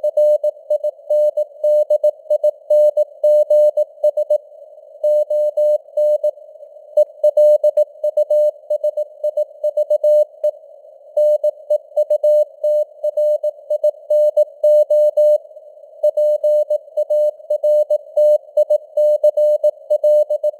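Morse code (CW) at 18 words per minute: a single steady mid-pitched tone keyed on and off in dots and dashes, with short breaks between words, over a narrow band of simulated radio receiver hiss.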